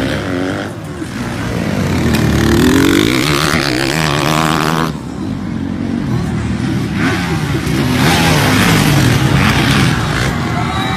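Motocross dirt bike engines revving hard and easing off, their pitch rising and falling again and again. The sound changes abruptly about five seconds in.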